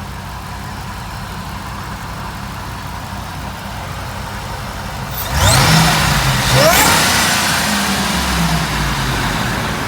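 2002 Ford F-150 SVT Lightning's supercharged 5.4-litre V8 idling steadily, then revved twice in quick succession about five seconds in, each blip with a rising whine, before settling back.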